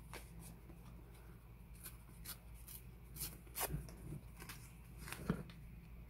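Faint rustling and light taps of paper scraps being handled and laid onto a paper folio page, with a few scattered soft clicks.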